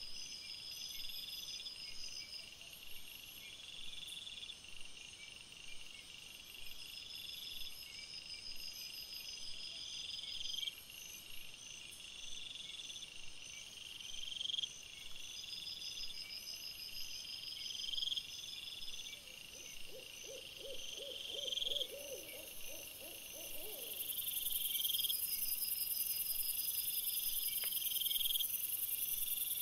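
Night insects chirping in steady, evenly repeating high pulses. About two-thirds of the way through comes a lower, wavering hooting call, a quick run of notes lasting a few seconds.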